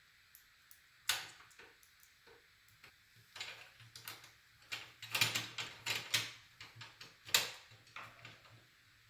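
Graphics card being fitted into a small-form-factor PC case: an irregular run of hardware clicks and knocks, one loud knock about a second in, a busy cluster around the middle and another loud knock near seven seconds.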